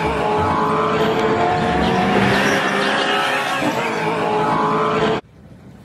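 Monster truck engine running hard and revving as the truck jumps, cutting off abruptly about five seconds in.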